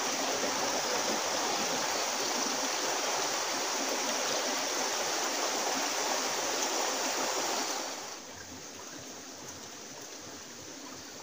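Stream water running over rocks into a pool, a steady rush that drops to a softer level about eight seconds in.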